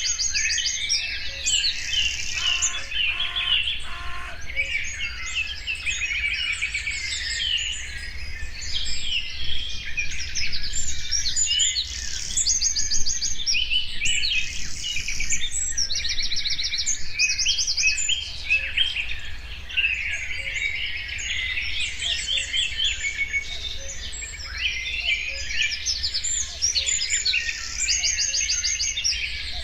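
Many songbirds singing at once, a dense, continuous chorus of chirps and trills, over a low steady rumble.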